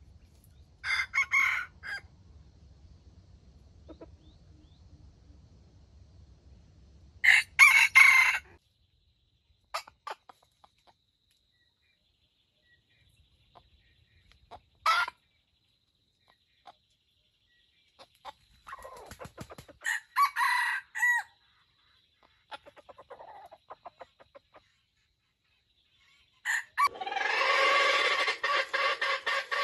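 Red junglefowl rooster calling in loud short bursts every few seconds, then starting a longer crow near the end.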